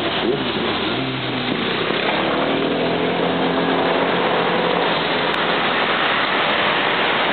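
Heavy traffic on a multi-lane city road: a steady rush of passing cars, with engine notes gliding in pitch as vehicles accelerate in the middle.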